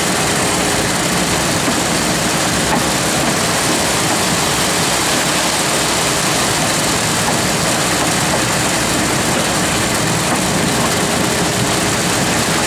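Heavy diesel engine running steadily, with fresh concrete pouring down a chute into a grated hopper.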